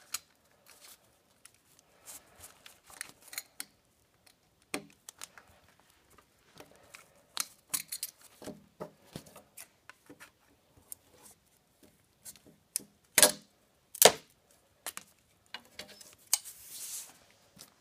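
Scattered clicks, scrapes and snips of a utility knife and scissors cutting through a quarter-inch wooden dowel, with tools knocked on a tabletop. Two sharp snaps about a second apart in the last third are the loudest sounds.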